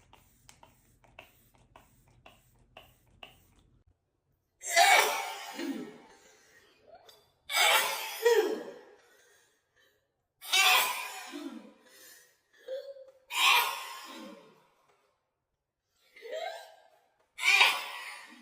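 A woman sneezing five times in a row, about every three seconds: each a loud, sudden burst that trails off with a falling pitch, with a short breathy 'ah' intake before some of them. Faint quick ticks are heard before the first sneeze.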